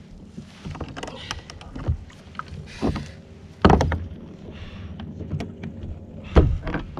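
Hollow knocks and thuds on a plastic fishing kayak as a hooked fish is played from it, over a steady hiss of water and wind. The loudest knock comes a little before the middle, another near the end, with fainter clicks between.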